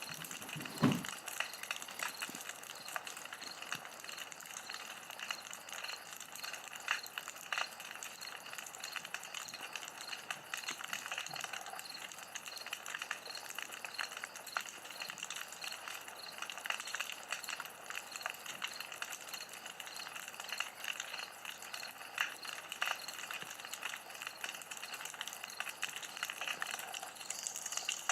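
Campfire crackling: a dense run of small sharp pops and snaps over a steady hiss, with one louder snap about a second in.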